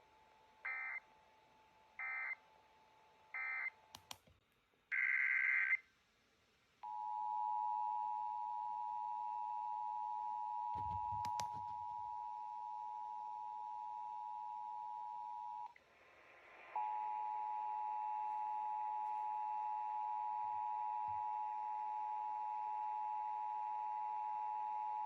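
Emergency Alert System tones from a radio: three short digital data bursts a little over a second apart, one longer data burst, then the steady two-tone attention signal, held about nine seconds, breaking off for about a second, and sounding again for about eight more. This is the tone that official messages follow in an EAS test.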